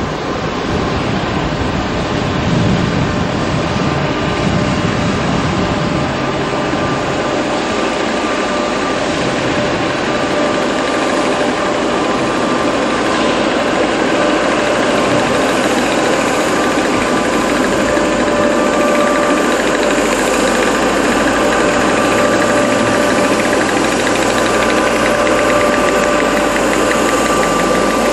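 British Rail AC electric locomotive moving slowly along the platform and drawing to a stand, giving a loud steady drone with two held whining tones. There is a heavier low rumble in the first few seconds, and the tones begin to fall right at the end.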